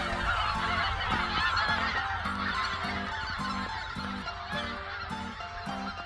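A large flock of wild geese calling together in a continuous din of overlapping honks. Background music with a steady beat runs underneath.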